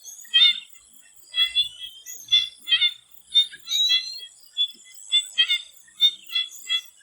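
A chorus of swamp frogs calling: short pitched croaks, repeated about every half second, some sliding slightly upward. Under them runs a steady high insect drone with fast pulsing.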